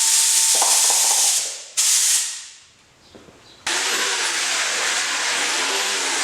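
A compressed-air tool hissing in bursts: a long blast that dies away, a short one, a pause, then a steady run of air near the end.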